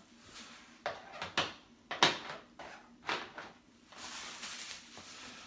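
Packaging being handled while a cardboard shipping box is unpacked: a few sharp knocks and taps, the loudest about two seconds in, then a steady rustling from about four seconds in.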